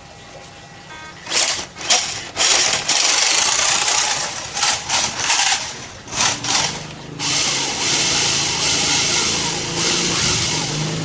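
WPL C24 RC truck's small electric motor and gearbox running in a string of short throttle bursts, then running steadily for about four seconds before cutting off.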